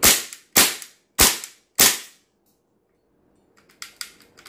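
GHK AKMS gas blowback airsoft rifle firing four semi-automatic shots about 0.6 s apart, each a sharp crack with the bolt cycling, the receiver cover off. These are its last shots before the magazine runs empty. A few light metallic clicks follow near the end.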